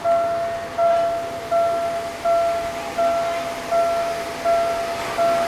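Level-crossing warning bell ringing a single-pitched ding over and over, about four strikes every three seconds, each fading before the next. The crossing is still signalling after the train has gone, because of a barrier fault.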